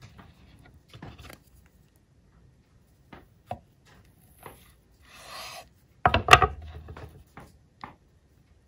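Kitchen knife cutting shaggy mane mushrooms on a wooden cutting board: scattered soft taps and scrapes, a short rasping slice about five seconds in, then a cluster of louder knocks against the board about a second later.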